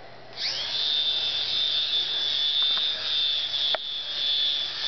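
Air Hogs mini remote-controlled helicopter's small electric motor and rotor spinning up about half a second in, then holding a steady high-pitched whine as it flies. There is one sharp click about three-quarters of the way through.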